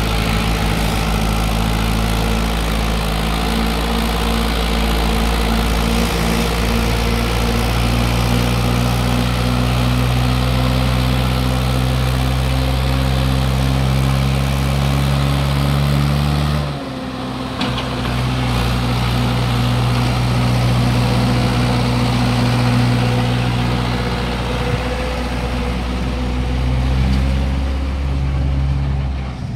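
Mahindra 575 DI tractor's four-cylinder diesel engine running steadily under heavy load as it pulls a fully loaded trolley up a long climb in second gear. The sound dips briefly about two-thirds of the way through, then carries on.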